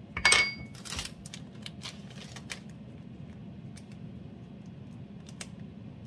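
A utensil clinks sharply against a dish with a short ring about a quarter second in, followed by a scatter of lighter clicks and taps as the sauce is handled, over the steady hum of an air fryer running.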